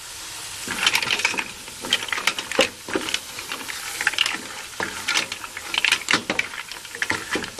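Green mussel shells clattering against each other and the metal pot as they are stirred, in irregular sharp clicks over a steady sizzle.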